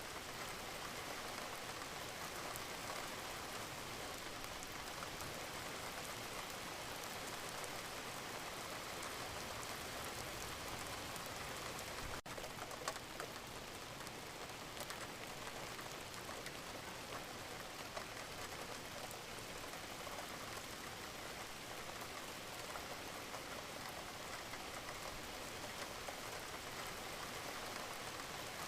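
Steady rain falling, an even patter of drops, with one very brief break near the middle.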